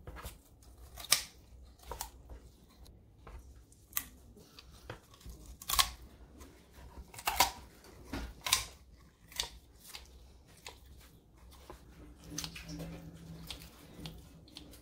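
Kitchen shears cutting through the backbone of a raw whole chicken to spatchcock it: a dozen or so sharp snips and cracks at irregular intervals as the blades close through bone and skin.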